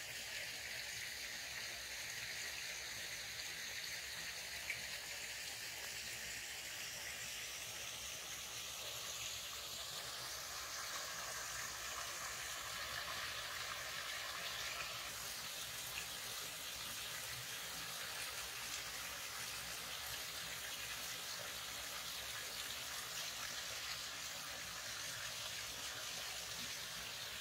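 Small woodland stream running over a low rock ledge into a pool: a steady, even rush and splash of flowing water.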